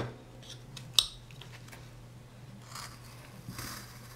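Carving knife taking small slicing cuts in a wooden figure: faint, short scraping shaves, with two sharp clicks in the first second.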